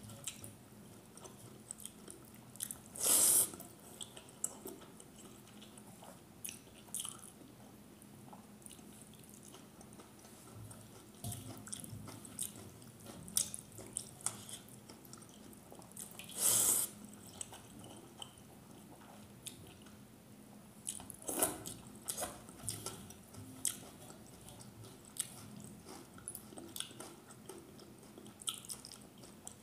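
Close-up eating sounds: a hand squishing and scooping wet rice in starchy rice water in a bowl, and mouth chewing and smacking with many small wet clicks. Three louder half-second noises stand out, a few seconds in, about halfway through and about two-thirds through.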